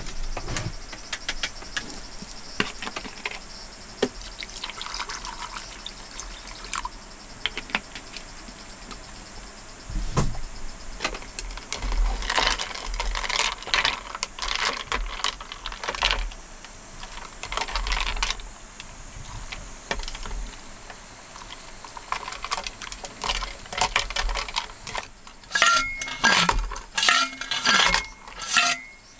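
Wooden chopsticks stirring and scraping in a stainless steel bowl, in irregular bursts. Near the end, ice water is poured in from a stainless bottle, with ice cubes clinking and ringing against the metal bowl.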